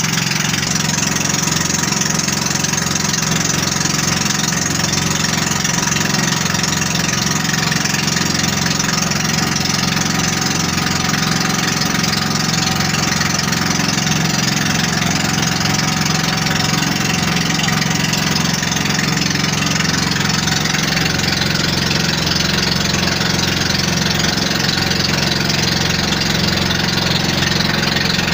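Engine of a motorized outrigger boat (bangka) running steadily while under way.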